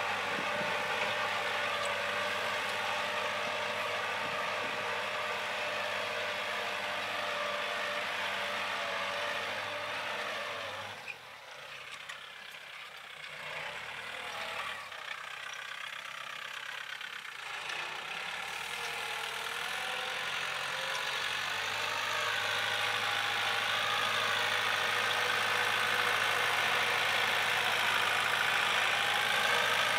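Kubota L4708 tractor's 47-horsepower diesel engine running steadily under load while it pulls a disc harrow through the soil. The sound drops away about a third of the way in, then grows louder again toward the end as the tractor draws close.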